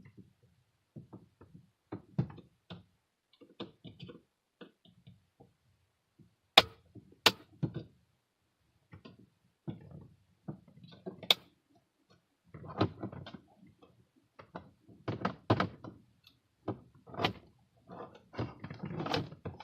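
Hand work on a car's dashboard trim and instrument cluster: scattered knocks and clicks, with three sharp snaps near the middle and busier rattling toward the end.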